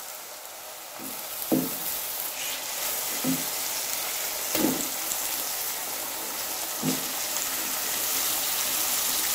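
Raw beef chunks going into hot oil with fried onions in a pot, the oil sizzling from about a second in and growing louder as more meat is added, with a few short knocks as pieces land and the wooden spoon moves them.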